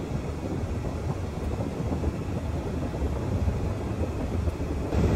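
Ford 3.5 EcoBoost twin-turbo V6 running steadily at raised revs, around 2,000 to 3,000 rpm, heard from inside the cab with the climate fan on max, while the freshly refilled cooling system is bled. It gets a little louder near the end.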